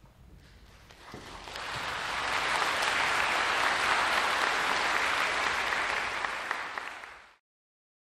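Audience applauding in a concert hall, building up over about a second, holding steady, then cut off abruptly near the end.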